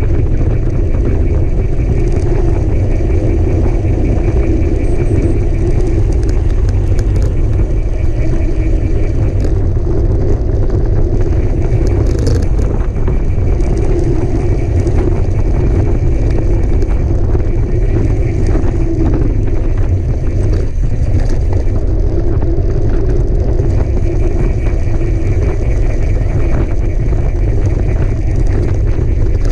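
Mountain bike being ridden, heard from a camera on the bike or rider: steady wind rumble on the microphone and tyre noise, with frequent short rattles and knocks from the bike over rough ground.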